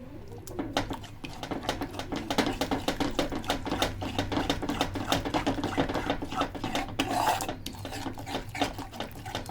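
A utensil stirring quickly in a cooking pan, with fast, irregular clicks and scrapes against the pan, over a steady low hum. Roasted gram flour and ghee are being mixed with milk to break up the lumps.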